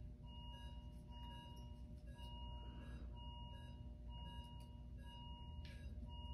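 Bedside patient monitor alarm sounding a repeated long tone about once a second, over a low steady room hum, with a single short clink near the end.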